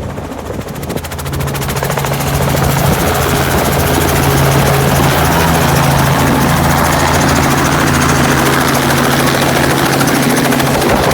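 Helicopter flying low overhead: the rotor and engine noise swells over the first two seconds or so, then holds loud and steady with a low drone beneath it.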